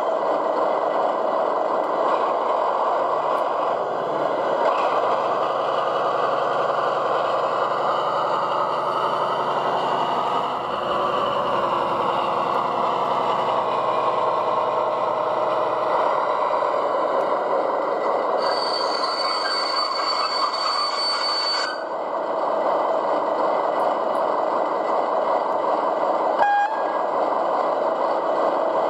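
Factory-fitted DCC sound of an O gauge DB V100 model diesel locomotive: a steady diesel engine running sound from the loco's onboard speaker as it travels along the track. A high steady tone joins in for about three seconds past the middle.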